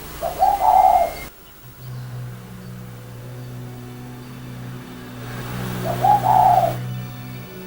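A bird calling twice, each a short low call about five seconds apart, over a low steady hum.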